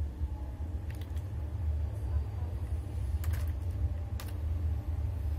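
A few clicks of a computer keyboard and mouse in small groups, about a second in, around three seconds in and again about four seconds in, over a steady low hum.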